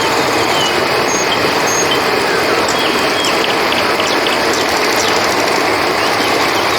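Steady rushing of river water, with short high chirps of crickets scattered over it.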